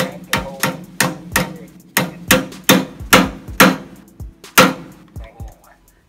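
A run of sharp knocks, like hammer strikes, each with a short ring, coming about two to three a second and dying away near the end, over background music.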